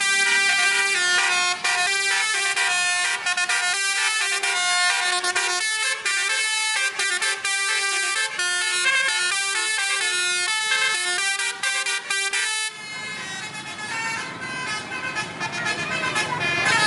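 Indonesian bus 'telolet' horn, a multi-note musical air horn, playing a tune of stepped notes. It stops about thirteen seconds in, leaving engine and street noise with fainter horn notes.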